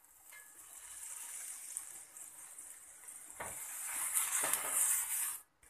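Water sizzling on a hot cast-iron dosa tawa as it is sprinkled and wiped with a cloth, the step that readies the tawa for the batter. The hiss grows louder toward the end and cuts off suddenly.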